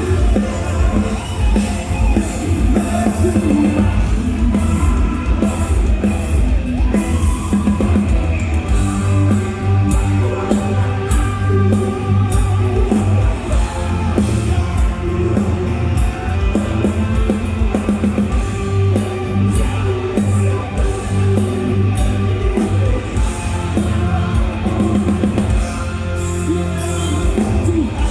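Rock band playing live: a drum kit, electric guitars and a singing voice.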